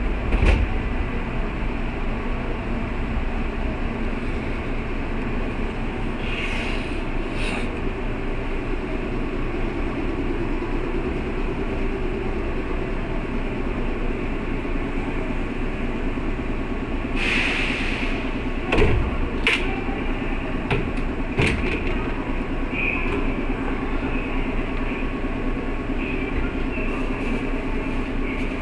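Kintetsu 8600 series electric train running, heard on board as a steady rumble of wheels on rails. Short hisses come about six to seven seconds in and again at about seventeen seconds, and a few sharp knocks come between about nineteen and twenty-two seconds in.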